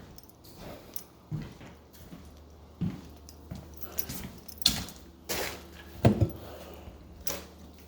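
A series of irregular knocks and thumps, about half a dozen, the loudest about six seconds in, over a faint steady low hum.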